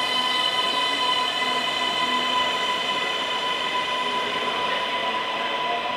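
Keisei AE-series Skyliner electric train moving in the station, its Toyo IGBT VVVF inverter giving a steady high whine with several overtones over the running noise.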